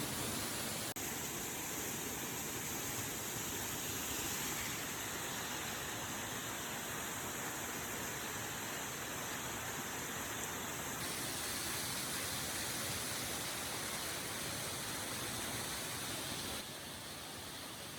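Mountain waterfall rushing, a steady wash of water noise. Its tone shifts abruptly about a second in and again around eleven seconds, and it drops a little quieter near the end.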